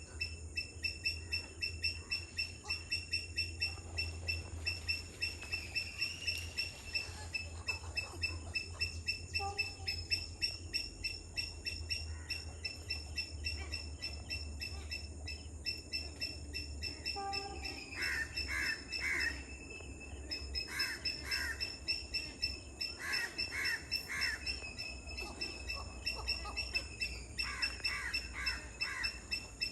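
Wetland birds calling, with clusters of quick repeated calls in the second half, over a steady high-pitched pulsing of about four to five beats a second.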